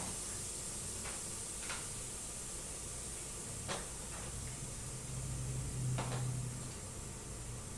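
Handling noises from a small lawn-tractor tire on its steel rim being worked on a wooden workbench: a few soft knocks and clicks over a steady faint hiss, with a low hum swelling about five seconds in.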